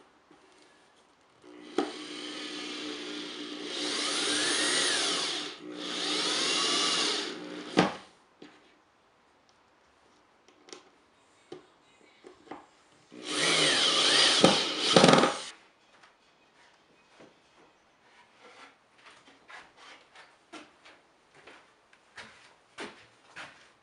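Corded electric drill driving 3/4-inch screws through a metal plate into plywood: three runs of motor whine, two back to back in the first eight seconds and one about halfway through, the pitch dipping and rising as each screw bites and seats. Scattered light clicks and knocks follow through the last several seconds.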